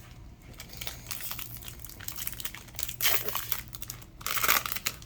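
Plastic booster-pack wrapper crinkling and tearing as a trading-card pack is opened, with the loudest crackles about three seconds in and again just after four seconds.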